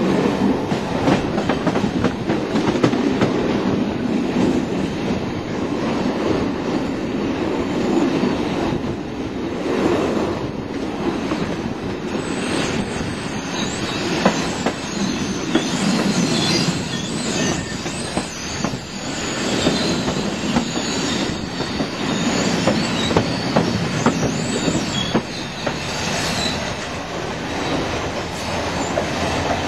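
Passenger train running along the rails, heard from an open coach window: a steady rumble with clicks from the wheels over rail joints and points. From about twelve seconds in, wavering high wheel squeal joins as the train curves through the yard tracks.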